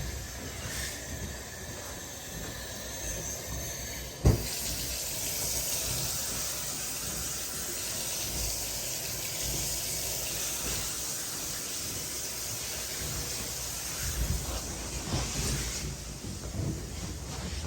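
Water turned on full blast to flush a sewer line: a sharp knock about four seconds in, then steady rushing water.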